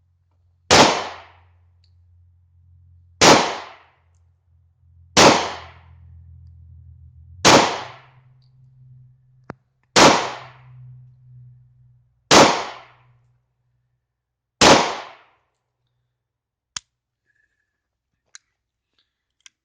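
A German P.08 Luger 9mm pistol firing seven slow, deliberate shots about two and a half seconds apart, emptying a seven-round magazine. A few faint clicks follow near the end.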